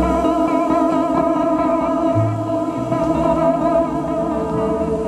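Electric guitar improvising through effects pedals: sustained, slightly wavering tones held over low notes that shift every second or two.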